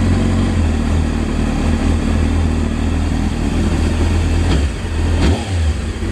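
Honda CBR600 F3's inline-four engine idling steadily, running cleanly on fresh fuel once the contaminated old fuel has been drained from its carburetors. Near the end come two short sharp sounds about a second apart.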